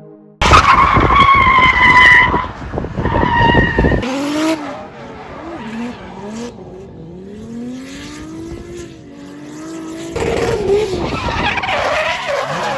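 Drift cars sliding sideways with tyres squealing and engines revving hard. A loud squeal runs for the first few seconds, then a quieter engine rises and falls in revs, and near the end the squealing and revving grow loud again.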